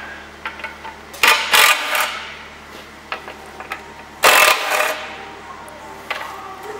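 Cordless power driver with a Torx bit run in two short bursts, about a second in and again past four seconds in, undoing the two T30 Torx bolts that hold the oil pickup pipe inside a removed sump. Light metal clicks in between.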